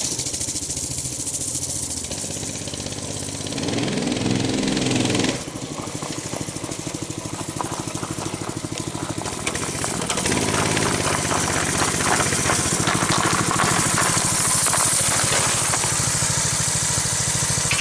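Mini bike's small engine running, its revs rising and falling a few times about four seconds in, then running steadily.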